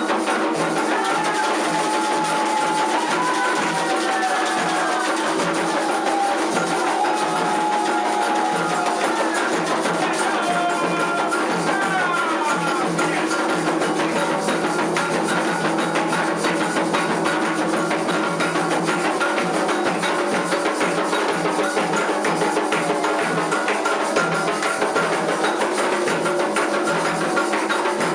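Candomblé ceremonial music: hand drums and percussion playing a fast, dense rhythm, with a few sliding voice-like tones in the first half.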